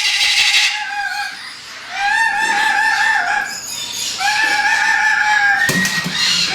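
Parrot screaming loudly: three long, wavering, piercing calls, then a short harsh squawk near the end, the noise of a parrot kept in the home.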